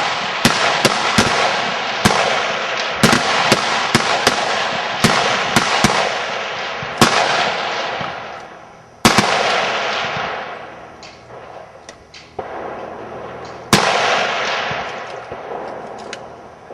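High-power rifles firing a rapid-fire string on a firing line. Many sharp shots come close together at first, then thin to single shots about nine and fourteen seconds in, each with a long echo.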